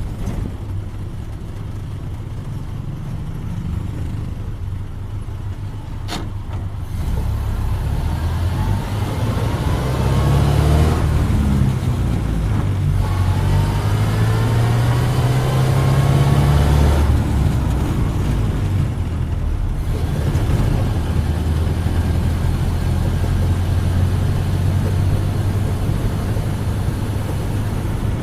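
1931 Ford Model A's four-cylinder engine running as the car is driven. It gets louder about seven seconds in, rises in pitch twice while accelerating, then holds a steady cruising drone.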